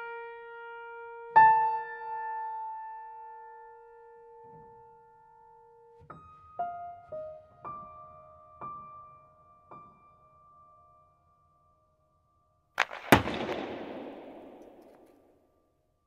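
Sparse piano music: one note rings out for several seconds, then a few soft single notes follow. After a short silence a loud, sharp bang about 13 seconds in is followed by a noisy tail that dies away over a couple of seconds.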